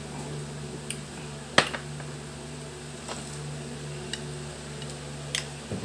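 A few sharp clicks and knocks of a glass bottle and tableware on a table, the loudest about one and a half seconds in, over a steady low hum.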